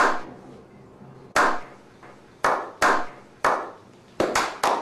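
Slow clap by a small group of men: single hand claps with a short echo, about a second apart at first, then quickening into faster clapping near the end.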